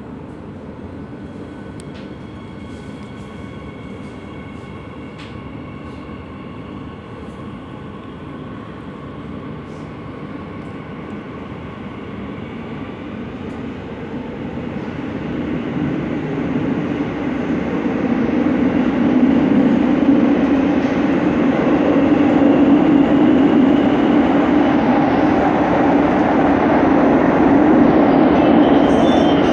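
Madrid Metro Line 12 train, heard from inside the car, pulling out of the station and accelerating into the tunnel. The running noise swells over several seconds partway through, then holds loud and steady.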